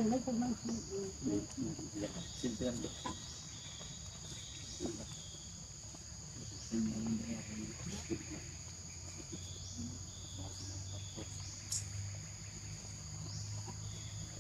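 A steady chorus of insects with a high drone and a rising buzz repeating about once a second.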